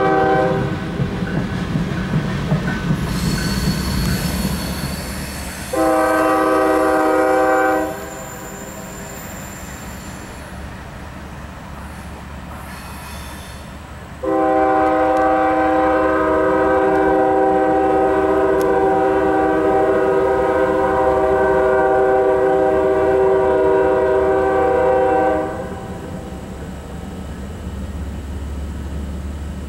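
Freight locomotive air horn sounding a steady multi-note chord in three blasts: one ending just after the start, a short blast about six seconds in, and a long blast of about eleven seconds from around fourteen seconds. Under it the covered hopper cars rumble past, with a high wheel squeal between about three and ten seconds.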